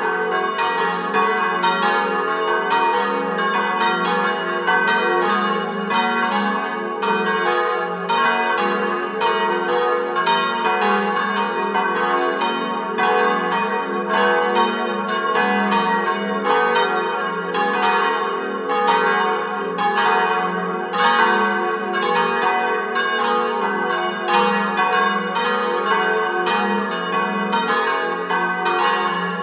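Four swinging church bells, cast by Giovanni Colbacchini of Trento and tuned to a diatonic G-flat major scale, ringing together in full peal, their strokes overlapping several times a second over a continuous ringing hum.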